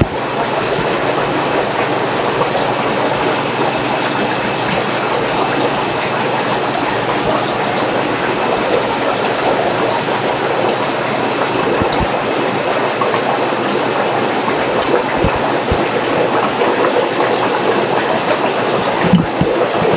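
Steady rushing noise of water circulating through rows of aquarium tanks and their filtration plumbing.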